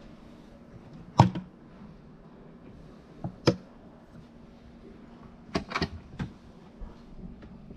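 Sharp knocks and clicks from handling the camper van's rear storage compartment under the bed: its latch and panels, about six times. The loudest comes a little after a second in, and a quick cluster falls past the middle.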